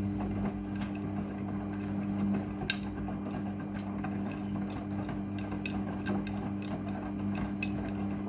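Midea front-loading washing machine running its rinse cycle: a steady motor hum with irregular ticks and clicks over it, one sharper click about three seconds in.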